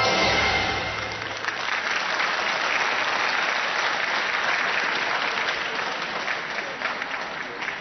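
The last notes of music die away in the first second, then an arena crowd applauds steadily, easing off a little near the end.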